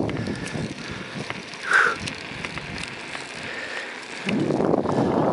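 Bicycle riding on a gravel dirt road: a rushing noise of wind on the microphone and tyres on gravel drops away to a quieter stretch, with one short squeak a little under two seconds in, then the rush comes back loudly near the end.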